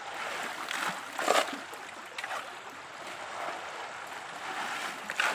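Shallow river rushing steadily around a wooden gold sluice box, with a couple of brief, louder splashes, the loudest about a second in and another near the end.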